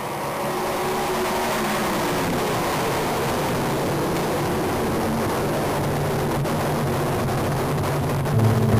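Sprint car engines running on the dirt track, a steady blended drone of several cars with pitch shifting up and down, swelling in over the first second. Rock music with guitar comes in near the end.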